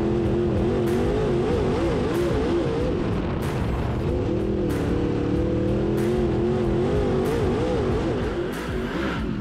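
Dirt-track race car's engine running hard, heard from an onboard camera on the hood. Its pitch wavers up and down repeatedly as the throttle is worked through the turns, with gusty wind noise on the microphone.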